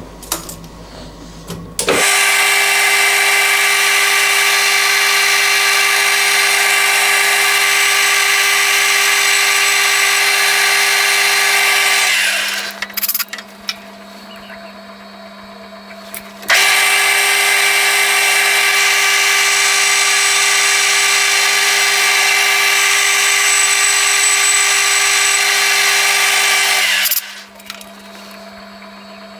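Metal lathe running with a steady whine while boring out a small metal burner cup to size. It runs for about ten seconds, winds down, and starts again a few seconds later for another ten seconds before stopping.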